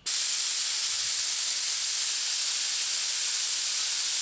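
Steady hiss of compressed air blowing through a DeVilbiss FinishLine spray gun, triggered with no paint loaded, its inline regulator set for about 20–21 psi. The hiss starts suddenly and holds even throughout.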